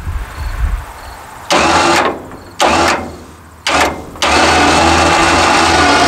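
Battery-powered electric winch on a car-hauler bed, pulling a car up the loading ramps by its cable. It is jogged in three short bursts about a second apart, then runs steadily from about four seconds in.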